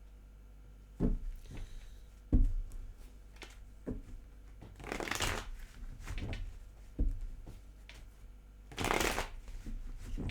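A deck of tarot cards being shuffled by hand: two longer rustling rushes, about five and nine seconds in, among several sharp knocks.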